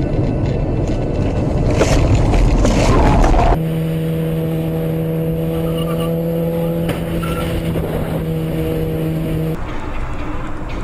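Vehicles on the move: a loud, dense rumble of road and engine noise that grows for the first three and a half seconds, then cuts suddenly to an engine droning at one steady pitch, which stops near the end and leaves quieter road noise.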